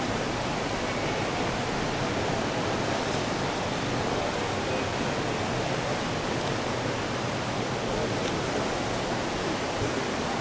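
Steady rush of fast-flowing river water, an even hiss with no breaks.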